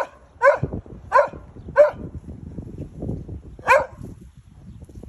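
A young dog barking: five short, sharp barks, four in quick succession about half a second apart, then a pause and one more.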